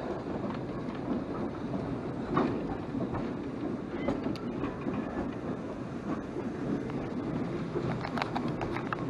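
Footplate noise of a BR Standard Class 9F 2-10-0 steam locomotive under way: a steady rumble and rattle of the running engine and cab, with a cluster of sharp clicks and knocks near the end.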